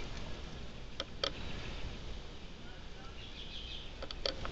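Quiet outdoor background with a steady faint low hum and a few short clicks: two about a second in and a couple more near the end.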